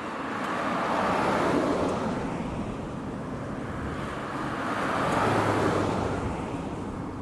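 Diesel railcar train of JNR KiHa 40-series cars passing close by: a rumble of engines and wheels on rail that swells twice, about a second in and again near the end.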